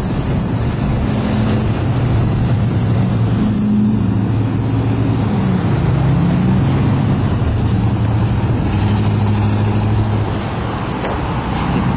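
Car engine and road noise while driving, a steady hum whose pitch dips and rises again around the middle.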